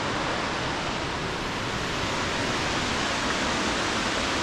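Steady rushing of a nearby mountain waterfall, an even noise with no breaks.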